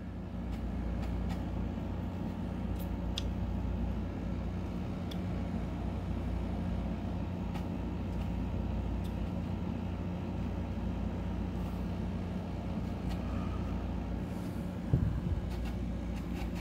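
Ceiling fan running with a steady low hum, with scattered faint ticks and a brief thump near the end.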